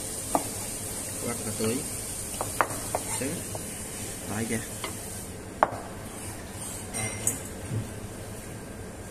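Chef's knife slicing peeled ginger on a plastic cutting board: irregular sharp taps of the blade meeting the board, over a steady background hiss that thins about halfway through.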